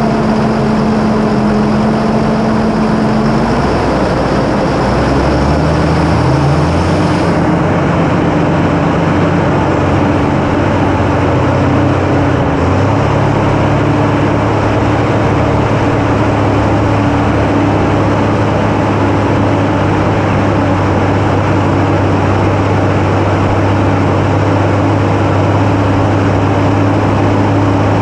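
Farm tractor's diesel engine running under load. Its pitch shifts a few times in the first dozen seconds, then holds steady.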